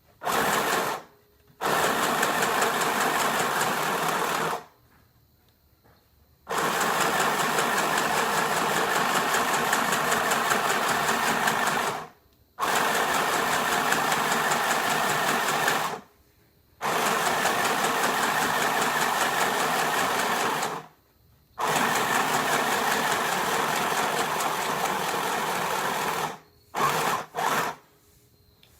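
Mini portable sewing machine running in bursts of a few seconds each, stopping and starting again about six times, with two quick short bursts near the end.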